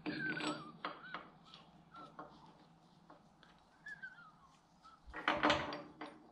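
Steel hold-down clamps and tools clinking and knocking on a milling-machine table as parts are set in place, with short wavering whistle-like tones between the knocks. The loudest clatter comes about five seconds in.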